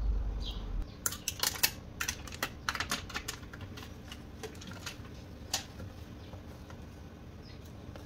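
Clear nano-tape pouch crackling and clicking as fingers press and turn it, with a quick run of sharp crackles over the first few seconds and one more a little later.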